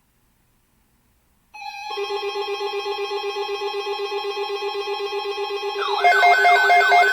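Electronic alarm tone that begins after about a second and a half of near silence: a rapidly pulsing tone, joined about six seconds in by a louder, fast-warbling siren-like tone.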